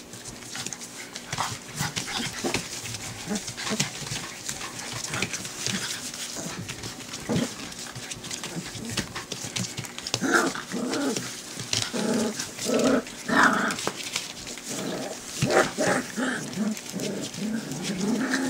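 A litter of four-week-old cream golden retriever puppies playing and trying out their first barks: short high yips and small growls, coming thickest in the second half, over the scratch and patter of paws scrabbling on newspaper.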